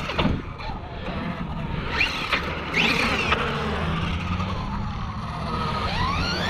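Tekno MT-410 electric RC monster truck's motor whining as the truck speeds up and slows down: several rising and falling whines, the strongest about halfway through and another climbing near the end.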